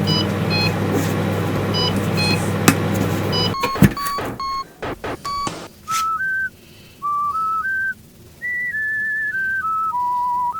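A steady low electric hum with short high beeps, cut off by a clunk about four seconds in; then a few more beeps and a simple tune of single pure, whistle-like electronic notes stepping up and down in pitch.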